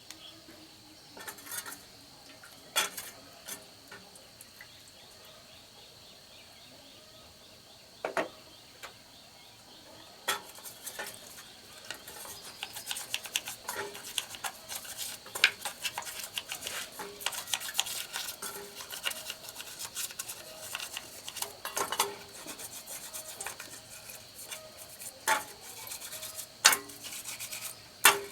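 Hand work on small metal chainsaw parts: scattered clinks and taps at first, then from about ten seconds in a busy run of rubbing, scraping and small metal clicks.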